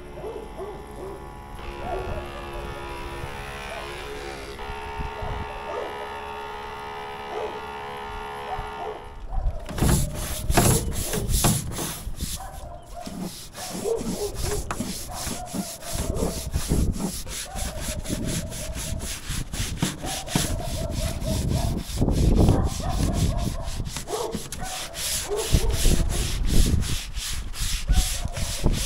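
A Ryobi battery-powered pump sprayer runs with a steady hum for about the first nine seconds. Then a long-handled scrub brush works the wet rubber roof of an RV in quick, repeated back-and-forth strokes.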